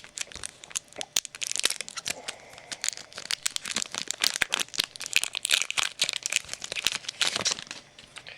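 Trading-card pack wrapper being torn open and crinkled by hand, a dense run of irregular crackles and snaps that dies away near the end.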